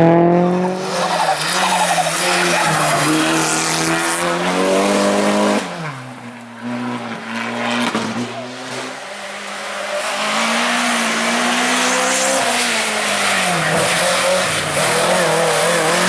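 Competition car engine revving hard under load, its pitch climbing and falling through gear changes. About six seconds in the engine drops off sharply to a lower, quieter note, then builds back up. Tyre squeal runs under the engine.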